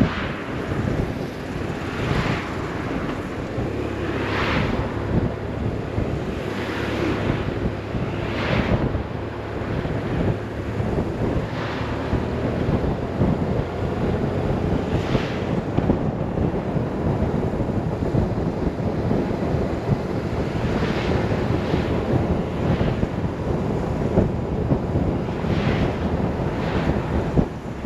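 Heavy wind rushing and buffeting over the microphone on a moving BMW R 1150 RS motorcycle, with brief louder gusts every few seconds and the bike's boxer twin engine running underneath.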